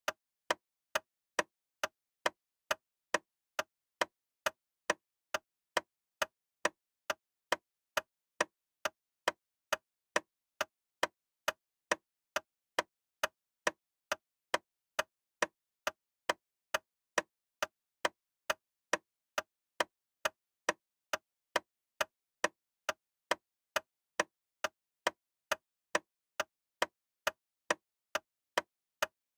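Loud, sharp ticking at a steady two ticks a second, each tick short and dry with silence between.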